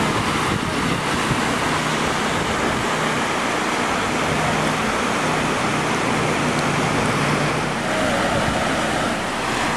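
Lake floodwater streaming across a paved street, a steady rushing noise.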